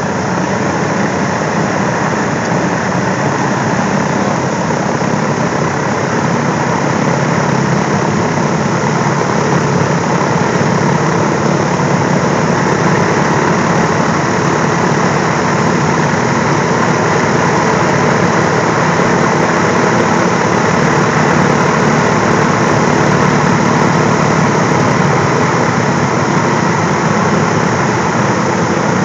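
Boeing B-29 Superfortress's Wright R-3350 radial engines idling on the ground, a loud steady drone that grows a little louder partway through.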